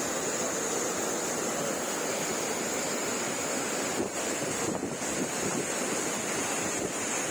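Heavy floodwater rushing and churning, a steady noise of fast turbulent water from a swollen river in spate.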